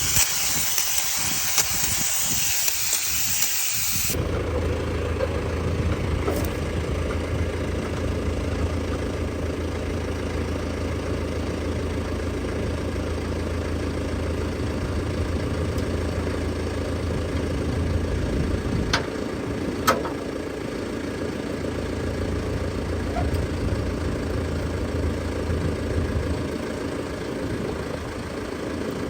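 A loud, steady hiss lasts about four seconds and stops abruptly. Then a tractor's diesel engine runs steadily with a low hum, with two short clicks past the middle.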